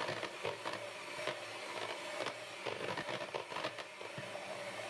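300 W electric hand mixer running, its beaters whipping egg whites in a bowl: a steady motor whine with irregular ticks and scrapes of the beaters against the bowl. The whites are glossy and close to stiff peaks.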